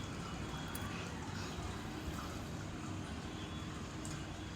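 Onions, turmeric and ginger-garlic paste frying in oil in a pan, a steady soft sizzle with a few faint ticks.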